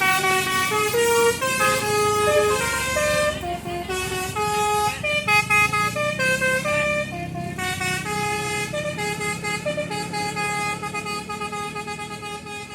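Bus telolet basuri horn playing a tune of quick, stepped notes over the steady low rumble of the bus engine, growing fainter toward the end.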